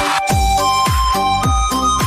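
Electronic dance (DJ) remix music: a steady kick drum about twice a second under a held melody line, with a brief cymbal-like swish at the start.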